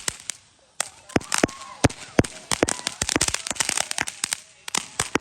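A string of firecrackers going off: dozens of sharp bangs in quick, irregular succession, with a short lull just after the start before the bangs start up again.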